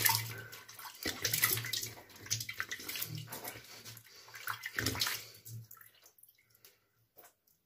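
Water splashed onto the face with cupped hands over a basin: a run of irregular wet splashes for about five seconds that die away near the end.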